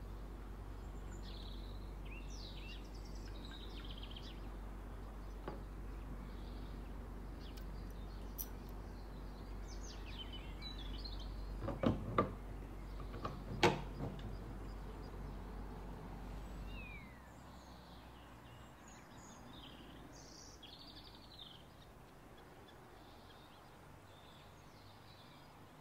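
A few light knocks of glass on a wooden table near the middle, as a glass perfume bottle and its crystal-shaped cap are set down. Underneath, faint bird chirps and a steady low hum that stops about two-thirds of the way through.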